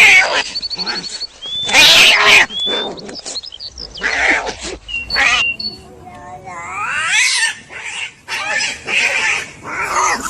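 Cats and kittens meowing: a string of separate calls of different pitch and length, some rising and falling in pitch.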